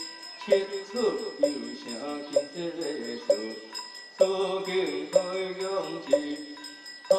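Taoist scripture chanting: voices chanting in unison over a steady beat of about one knock a second, with bell tones ringing through it. The chanting drops briefly near four seconds in and comes back fuller.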